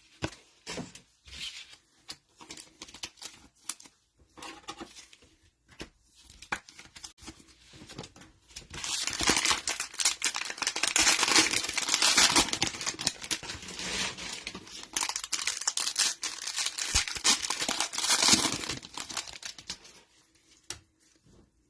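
Cellophane wrapper of a trading-card cello pack being torn open and crinkled: scattered light handling clicks at first, then about ten seconds of dense crinkling starting around nine seconds in.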